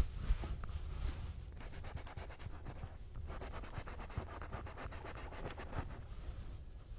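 Paintbrush scrubbing oil paint on canvas in rapid back-and-forth blending strokes, with a short pause about three seconds in.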